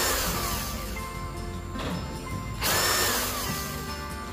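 DEKTON D21 MK13 cordless hammer drill's motor on a variable-speed trigger test in its high-speed gear. At the start its whine falls away as the trigger is let go. About two and a half seconds in it rises again and winds down the same way, the speed following the trigger smoothly.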